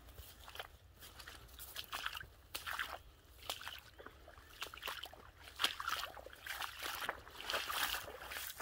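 Footsteps squelching and splashing through a waterlogged, muddy trail, with dogs running through the wet grass and puddles. Irregular wet steps, roughly one or two a second.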